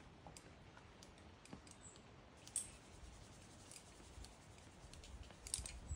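Near quiet, with sparse faint clicks and one sharper click about two and a half seconds in; a cluster of clicks and a low rumble come in near the end.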